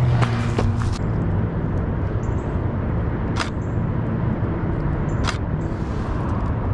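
Steady low rumble of a running vehicle engine, with a faint hum, and two short sharp clicks about three and a half and five seconds in.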